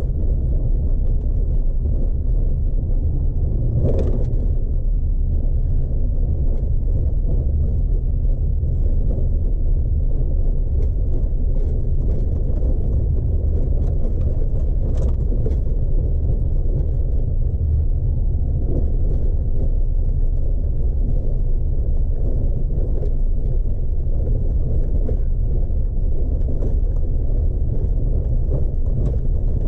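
Chevy Colorado ZR2 pickup driving slowly over a dirt trail, heard from inside the cab: a steady low rumble of engine and tyres on dirt, with scattered knocks from the rough surface, the clearest about 4 seconds and 15 seconds in.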